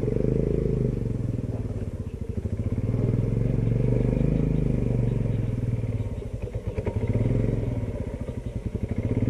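Royal Enfield Himalayan's single-cylinder engine running with a fast, even beat, revving up and easing off twice while the bike is stuck in wet clay and being worked free.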